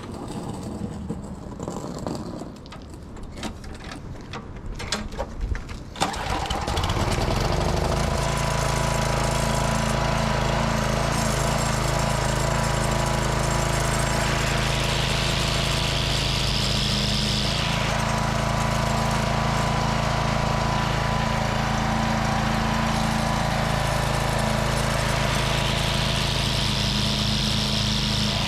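Walk-behind string-trimmer mower being started: clicks and rattles of the pull start, then its small single-cylinder engine catches about six seconds in and runs steadily. Twice a rising whooshing hiss joins for a few seconds, the cutter head spinning up once the tensioner lever engages the belt, the sign that the repaired belt tensioner now drives the cutter.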